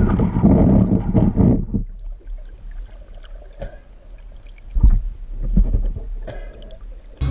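Water sloshing and gurgling close to the microphone, loud for the first two seconds, then quieter with scattered clicks and a few low thumps.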